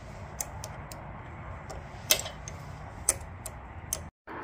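Light metallic clicks from a socket wrench on a hydraulic disc brake caliper's bleed screw as it is tightened shut while bleeding the brake. There are about half a dozen irregular clicks, the loudest about two seconds in, over a low steady background hum.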